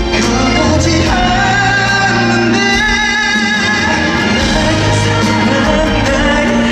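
A man singing a pop song live over band accompaniment, with a wavering held note about two to three seconds in, recorded from the audience in a large hall.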